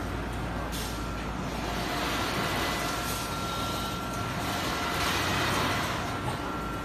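Short-cycle melamine hot press line running: a steady machine hum with a constant thin whine, and two swells of hissing noise, about two seconds in and again about five seconds in.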